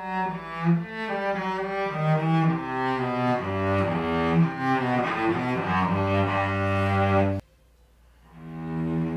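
Solo cello bowed through a melodic passage of changing notes, played as a tone test of a tuner tailpiece. The sound cuts off suddenly about seven seconds in, and the playing starts again about a second later.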